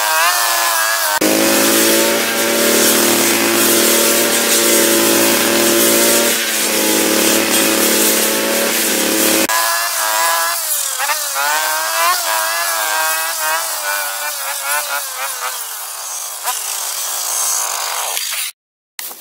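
Dolmar MS 3202 brushcutter's small two-stroke engine running. It revs, drops to a lower, steady note for about eight seconds, then revs up and down in repeated surges that fade off. The sound cuts out abruptly near the end.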